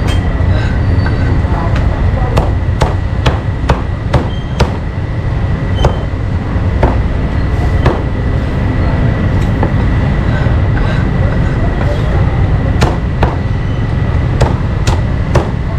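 Knife chopping meat on a chopping board: sharp, irregular strikes, some in quick runs of several and some with pauses between, over a steady low rumble.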